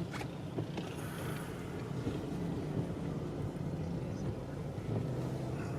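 Car running, heard from inside the cabin: a steady low engine and road rumble with a faint hiss.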